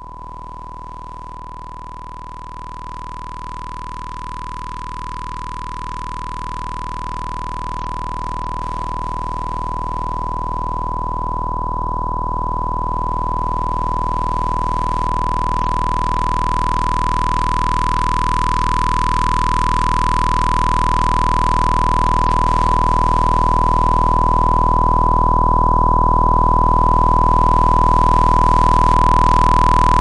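Synthesized drone sound effect: a steady high tone over a dense, unchanging low hum, slowly swelling louder throughout, with a faint sweep passing through the sound every seven seconds or so.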